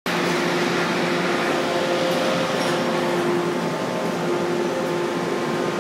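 Steady drone of aluminium extrusion line machinery: an even rushing noise with a few steady humming pitches and no sharp knocks.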